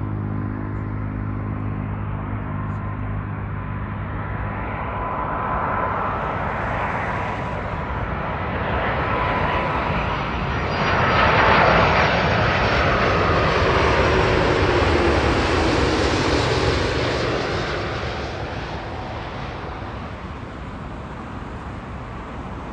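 Airbus A330 jet airliner passing close overhead on its landing approach: engine roar with a whine that slowly falls in pitch, building to its loudest about halfway through and then fading. A steady low hum fades out in the first few seconds.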